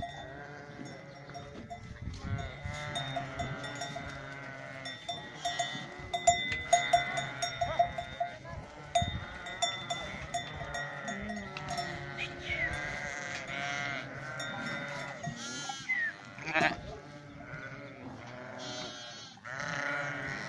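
A flock of sheep bleating, many calls overlapping one another, with scattered light clicks and knocks among them.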